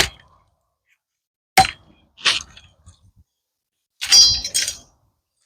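A blade chopping at dead pecan branches: sharp strikes, three in the first two and a half seconds, then a longer stretch of cracking and breaking wood about four seconds in.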